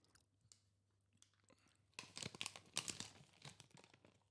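Crisp fried chicken crunching as it is bitten into and chewed close to the microphone: a burst of crackling crunches about two seconds in, trailing off into a few softer chews.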